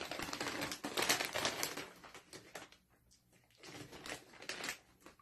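Crackling and crinkling of a plastic snack bag of caramel-chocolate popcorn clusters being handled and rummaged through. It comes in two spells, the second starting a little past halfway.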